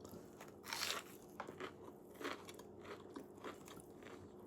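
Biting into a crunchy chicken strip: one loud crunch about a second in, then shorter crunches of chewing every half second or so.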